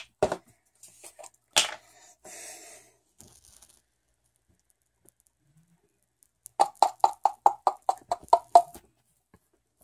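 Squeeze bottle of blue paint being squeezed upside down: a few clicks and a short hiss of air early on, then, after a pause, a rapid sputter of about seven pops a second as paint and air spurt from the nozzle.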